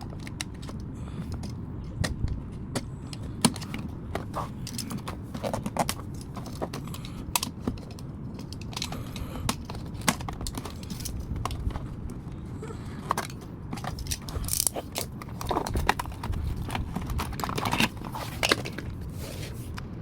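A toy's cardboard and plastic packaging being handled and opened by hand: scattered clicks, taps and short rustles.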